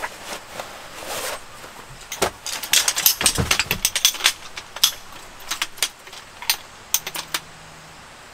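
Folding tripod being handled: a string of sharp metallic clicks and rattles as its legs are swung out and locked, thickest in the middle few seconds and tapering off near the end.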